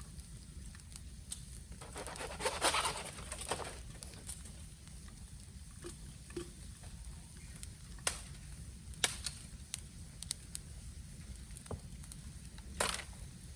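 Bamboo burning in a bonfire: scattered crackles and sharp pops, with a denser crackling, hissing stretch about two to three seconds in and a loud pop near the end.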